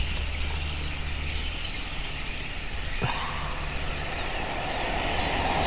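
A large flock of black birds chirping and chattering all at once, a dense mass of overlapping calls, over the low steady hum of an idling engine. A single click about three seconds in.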